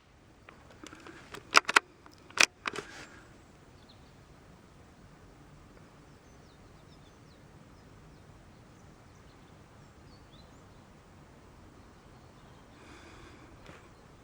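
A quick run of four or five sharp metallic clicks from a Brno/CZ bolt-action .22 LR rifle, typical of the bolt being cycled after a shot, with the second-to-last click the loudest. Faint bird chirps follow over a quiet outdoor background.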